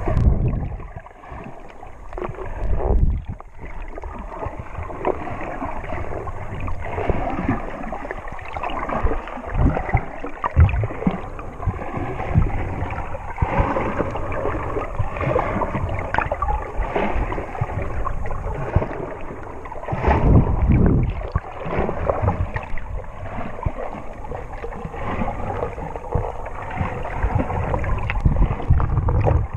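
Sea water sloshing and gurgling around a submerged camera, muffled, with irregular low thuds from a swimmer's movements.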